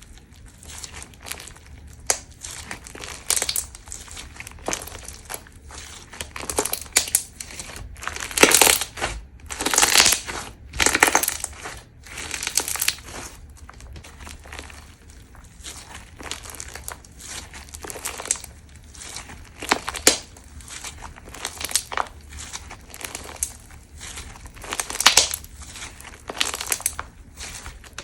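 Crunchy slime being squeezed and pressed by hand, giving irregular crackling crunches. They come in louder clusters about a third of the way in and again near the end.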